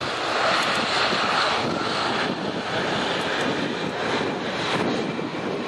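Jet engines of a large South African Airways airliner at takeoff power during its takeoff roll, heard from across the airfield as a steady rushing roar.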